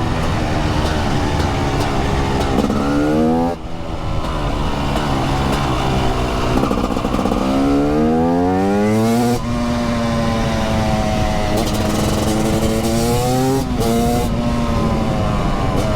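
TM 300 SMR supermoto's 300cc single-cylinder two-stroke engine under hard acceleration: revs climb and break off briefly at gear changes about three and a half and nine seconds in. It then holds steadier revs, with another short break a couple of seconds before the end.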